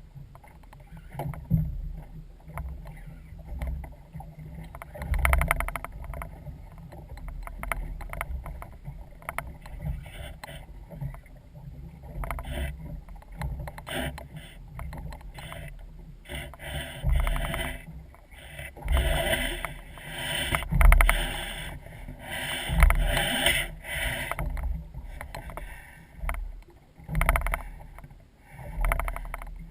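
Irregular sloshing, knocks and rushes from a small boat on open water, with low thuds.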